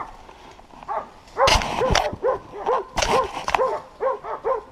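Hunting dogs barking in a fast, continuous run, about four barks a second, with two louder, harsher bursts in between. The dogs are baying at a wild boar they have brought to a stop.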